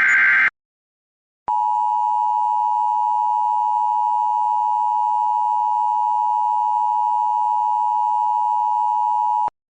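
Emergency Alert System broadcast over FM radio: the last of the buzzy digital SAME header data bursts ends about half a second in. After a second of silence comes the EAS two-tone attention signal, a steady, loud dual tone near 1 kHz held for about eight seconds before it cuts off sharply, announcing a tornado warning.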